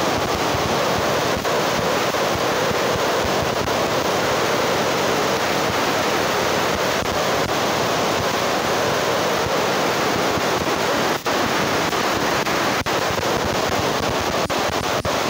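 Steady rushing noise, unbroken apart from a few momentary dips.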